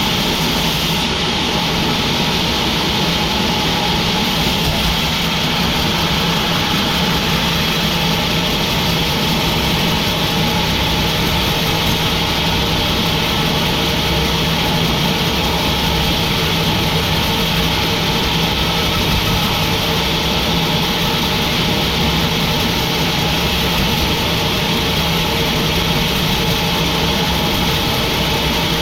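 Sawmill machinery running steadily: a constant engine-like drone with a fixed hum that does not change in pitch or loudness.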